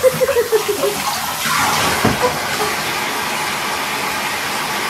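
Bathtub tap running into the tub, a steady rushing hiss of water.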